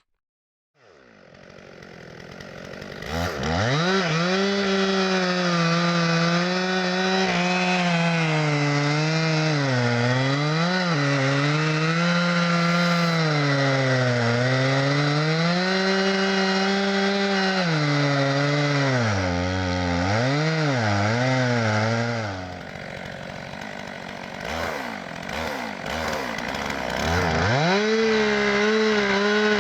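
Chainsaw cutting into a tree at full throttle, its engine pitch dipping and recovering again and again as the chain loads in the wood. About three-quarters through it drops quieter for a few seconds, then revs back up.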